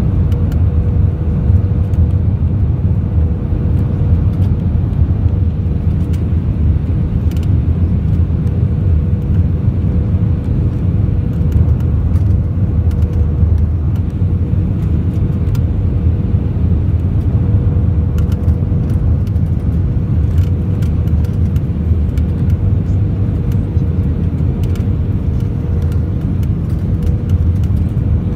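Cabin noise inside an Airbus A320ceo on final approach with flaps extended: a loud, steady low roar of airflow and engines, with a faint steady hum above it.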